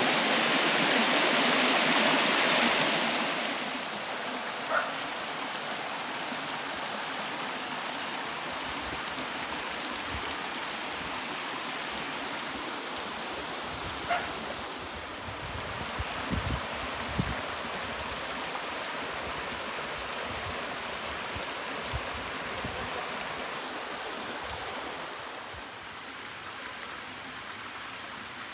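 Gorman Falls spilling over mossy travertine into a clear pool: a steady rush and splash of falling water. It is loudest for the first three seconds, then settles to a softer level, with a few brief low bumps around the middle.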